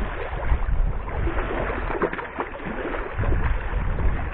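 Hooked golden dorado thrashing and splashing at the surface in shallow water as it is hauled toward the beach, over a heavy low rumble.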